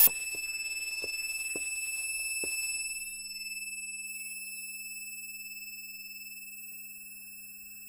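Steady high-pitched electronic tone that slowly fades away over the last five seconds, with faint regular ticks in the first couple of seconds and a low hum underneath later on.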